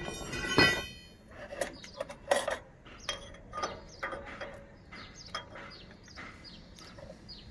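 Metal truck hub parts and tools clinking and knocking as they are handled. There is a louder metallic scrape in the first second, then a scatter of short clicks.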